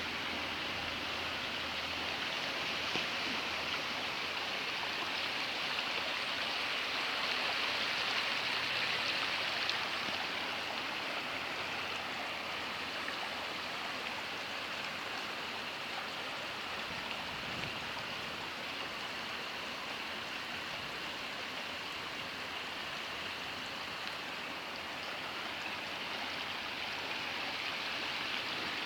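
Rainwater rushing steadily down a wadi, a continuous stream-like flow.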